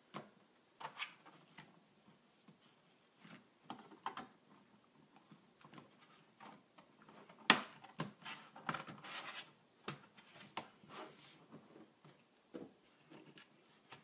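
Plastic access panel being fitted back onto the underside of a laptop by hand: scattered faint clicks and taps of plastic on plastic, the sharpest about seven and a half seconds in.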